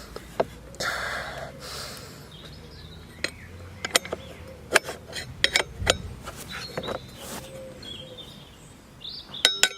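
Scattered light clicks and knocks of handling, with a short rustle about a second in and birds chirping faintly in the background.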